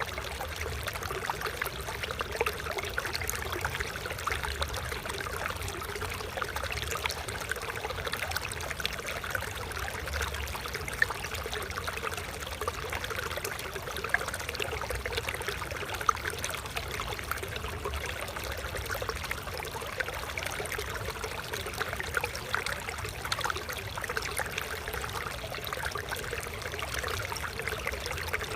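Small stream of water flowing and trickling steadily, with many little splashes and babbling over rocks.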